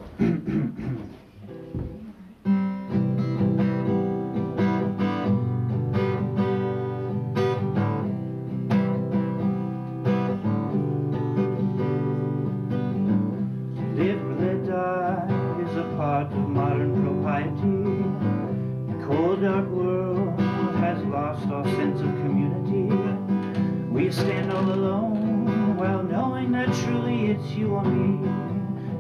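Steel-string acoustic guitar strumming the chords of a self-written folk song. After a few quieter notes it settles into steady strumming about two and a half seconds in.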